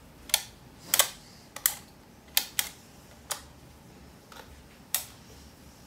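Plastic toy parts clicking and snapping as they are handled and fitted together: about seven sharp, separate clicks at irregular intervals.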